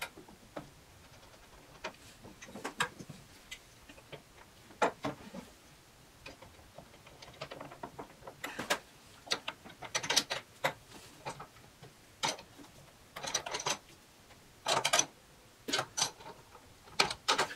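Irregular small metal clicks, taps and short scrapes as a brass air-hose fitting is threaded by hand into an air pressure regulator, then snugged with an open-end wrench near the end.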